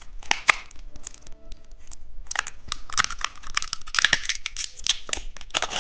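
Plastic candy wrapper crinkling and tearing as it is opened, in quick irregular crackles.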